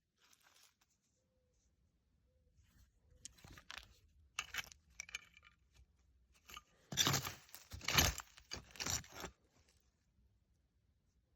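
Small quartz crystals and bits of rock clinking and rattling against each other as they are handled. There are a few scattered clicks at first, then a louder flurry of clattering from about seven to nine seconds in.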